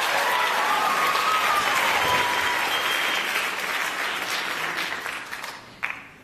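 Theatre audience applauding, the applause dying away near the end.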